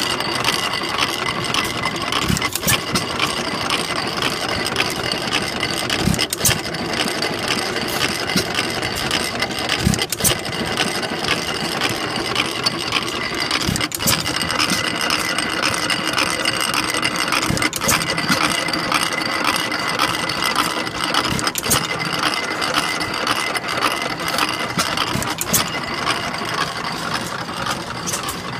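Horizontal Armstrong Quam hit-and-miss gas engine running: a sharp firing stroke about every four seconds, with the steady clatter of its gears and valve gear as it coasts between firings.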